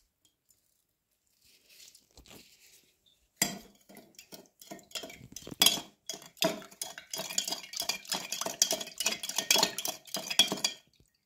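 A metal spoon stirring sugar syrup in a glass jug, hitting the glass in quick repeated clinks with a ringing note, starting about three seconds in, while the sugar dissolves in the hot water.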